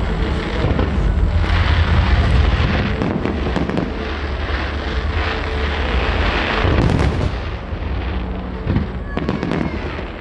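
Aerial fireworks display with many shells going off in quick succession: a continuous low rumble of bangs mixed with crackling, easing a little after about seven seconds.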